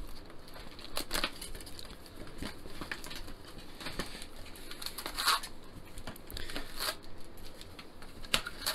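A cardboard trading-card box being opened by hand and its foil-wrapped card packs pulled out and set down: irregular crinkling and rustling of foil wrappers and cardboard, with scattered light taps and scrapes.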